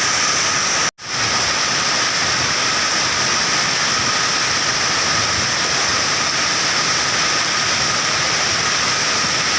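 Heavy rain pouring down steadily in a loud, even hiss, cutting out for an instant about a second in.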